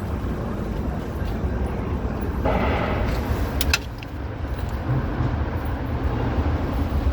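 City street traffic: a steady low rumble of passing vehicles, with a louder hissing swell about two and a half seconds in that ends abruptly with a couple of sharp clicks.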